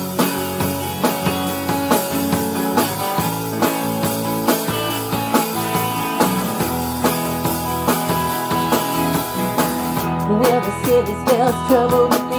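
Live rock band playing, with drum kit, electric guitar and acoustic guitar. A woman's lead vocal comes in about ten seconds in.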